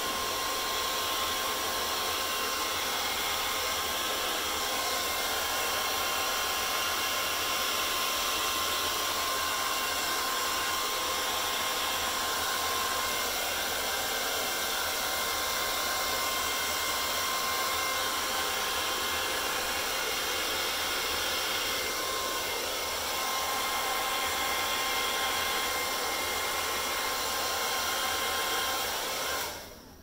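Handheld hair dryer fitted with a concentrator nozzle, running steadily: a rush of air with a thin whine over it, blowing across wet acrylic paint. It is switched off shortly before the end.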